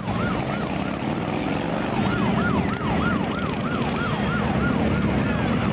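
A siren yelping, its pitch sweeping quickly up and down about three times a second. It breaks off briefly about a second in, then starts again. Underneath is the low, steady running of motorcycle engines going past.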